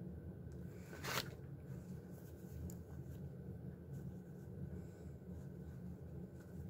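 A brief rustle of plastic wrapping being handled about a second in, then faint small handling sounds over a low steady hum.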